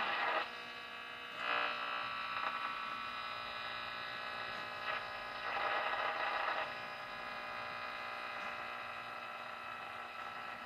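Unrestored 1937 Philco 37-690 tube radio, run at a reduced 90 volts on a variac, being tuned between stations: its speaker gives a steady hum and whine with static, swelling into short bursts of hiss three times as the dial passes signals.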